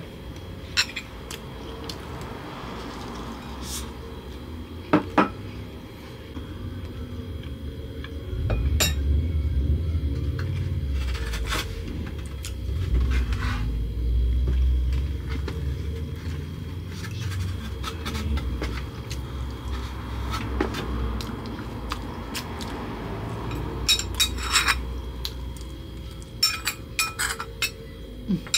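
Metal spoon clinking and scraping against a ceramic bowl in scattered sharp taps, with a cluster of quick clinks near the end. A low rumble runs through the middle under a faint steady hum.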